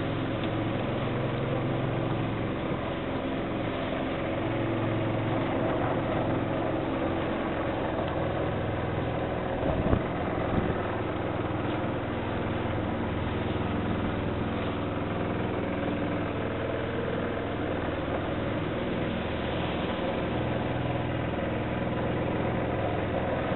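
Small boat's motor running steadily under way, with water noise around it. One short thump about ten seconds in.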